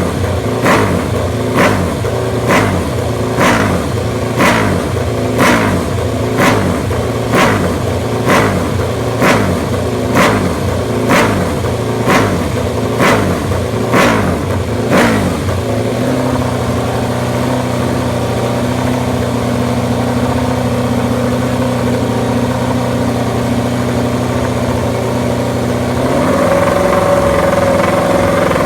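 MotoGP racing motorcycle engine being blipped on the throttle about once a second, each sharp rev dropping straight back, for about fifteen seconds, then settling into a steady idle that steps up to a higher, louder idle near the end.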